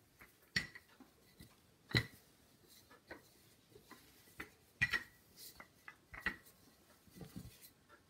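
Wooden rolling pin knocking and rolling on a wooden pastry board as a sheet of dough is rolled out: a scatter of short, sharp knocks, the loudest about two seconds in and just before five seconds.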